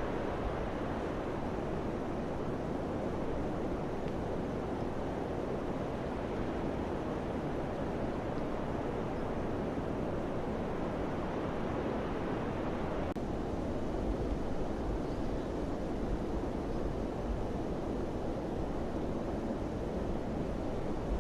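Wind blowing, a steady rushing noise with a low rumble that grows stronger about two-thirds of the way through.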